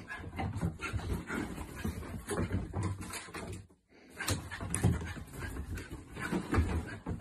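Dog sounds mixed with scattered short knocks, broken by a brief silence a little under four seconds in.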